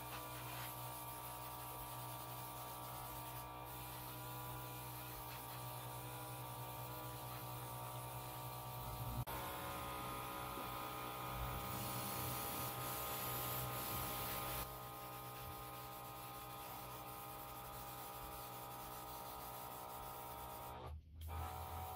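Steady electrical hum throughout. Just past the middle comes about three seconds of high hiss from an airbrush spraying paint.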